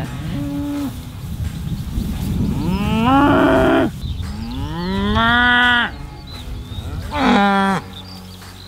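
Cattle mooing: three long calls, each about a second long and rising in pitch as it starts, over a steady low rumble.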